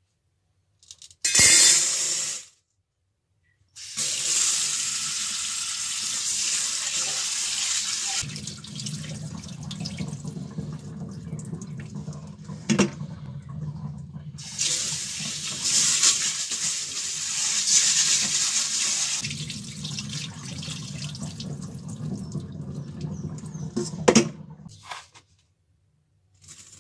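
Tap water running steadily into a stainless steel bowl to rinse mung beans, starting about four seconds in and shutting off a couple of seconds before the end. A short burst of noise comes just before the water starts, and a sharp click and a louder knock sound during the running water.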